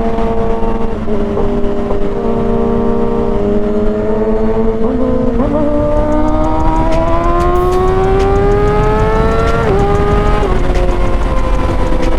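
Kawasaki ZX-6R 636 cc inline-four running under way, with wind rushing past. The engine note holds steady, then climbs smoothly for about four seconds as the bike accelerates. Near ten seconds it drops sharply at a gear change and settles into a steady cruise.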